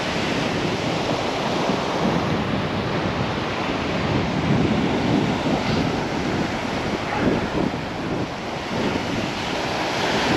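Surf washing steadily onto the beach, with wind buffeting the microphone.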